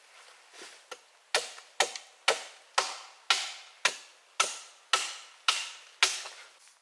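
Wood being chopped with a hand tool: a light tap, then about ten sharp strikes, roughly two a second, each ringing briefly before the next.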